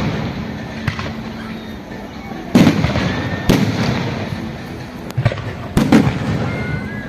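Fireworks going off: about five sharp bangs, loudest roughly two and a half, three and a half and six seconds in, with short whistles between them.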